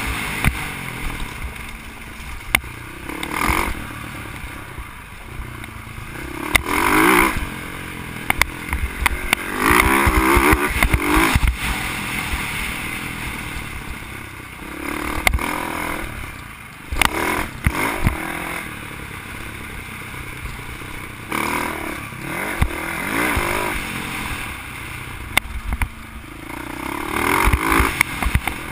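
Dirt bike engine revving up and dropping back over and over as it is ridden along a bumpy dirt trail. Scattered sharp knocks and rattles come from the bike over the bumps.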